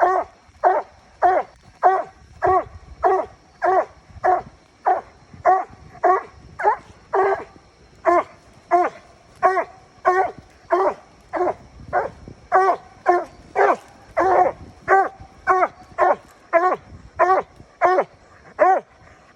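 Coon dog barking steadily at a tree, about one and a half barks a second. This is a tree bark, the sign that the dog has a raccoon treed.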